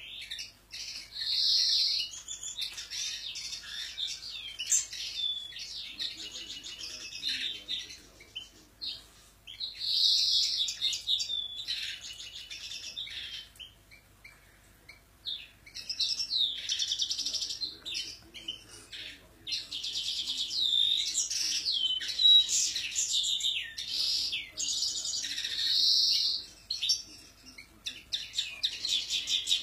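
Caged European goldfinches singing in long runs of rapid twittering song, with brief pauses twice midway.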